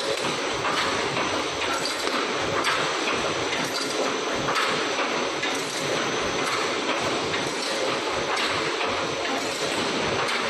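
Wire mesh welding machine for 3D EPS panels running: a steady mechanical clatter with occasional clicks.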